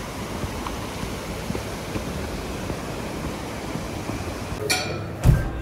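Steady rushing outdoor background noise, with a single sharp low thump near the end.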